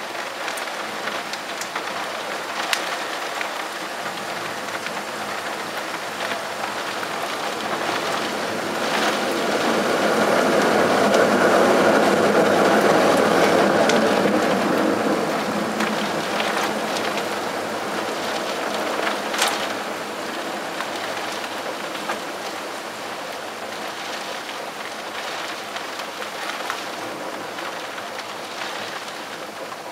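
Steady thunderstorm rain, with drops tapping close by. A broad rumble builds from about eight seconds in, is loudest around twelve seconds, and fades away by about sixteen seconds.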